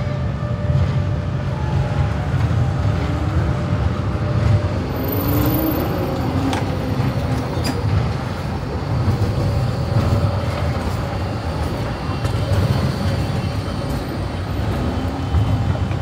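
Zürich city tram running past close by: a steady low rumble with a faint whine that rises and falls, over street traffic.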